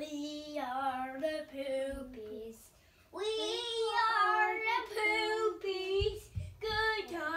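Young boys singing a silly song in long, drawn-out notes. The singing breaks off briefly about two and a half seconds in, then resumes higher and louder.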